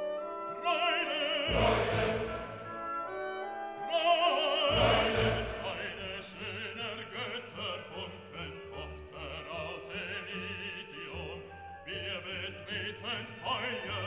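Background music: a voice singing with vibrato over orchestral accompaniment, swelling loudest with deep bass notes about two seconds in and again around five seconds.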